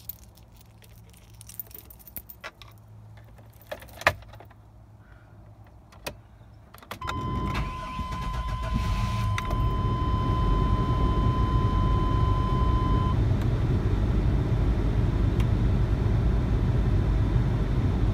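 Keys jingling and clicking at the ignition, then about seven seconds in the 1997 Chevrolet Blazer's 4.3-litre V6 starts and settles into a steady idle near 1,000 rpm. A steady high warning tone, the seatbelt reminder, sounds for about six seconds after the start.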